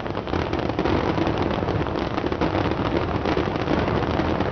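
Large fireworks display going off without a break: a dense low rumble of many shells bursting with rapid crackling.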